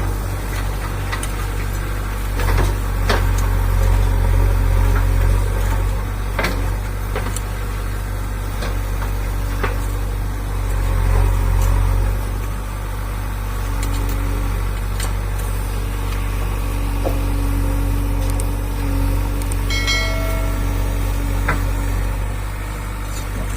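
Diesel engine of a JCB backhoe loader running steadily with a deep rumble, with scattered knocks and clicks and a short pitched squeal near the end.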